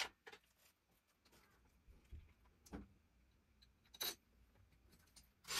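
Near silence with a few faint, sharp metal clicks and taps from a long screwdriver extension being worked onto a masonry screw in a wall hook. A loud, harsh burst of noise starts right at the end.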